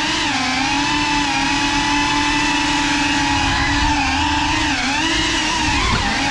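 Motors and propellers of a GEPRC Cinelog35 cinewhoop FPV drone whining in flight, holding a steady pitch that dips and rises briefly with throttle changes about two-thirds of the way through.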